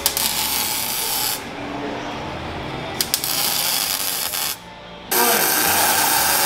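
MIG welding on exhaust tubing: a crackling, hissing sizzle that stops and starts in three bursts, the last one loudest.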